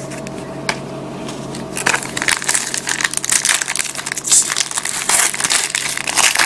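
Foil wrapper of a trading-card pack being crinkled and torn open by hand. A few light clicks come first, then dense crackling starts about two seconds in and keeps on.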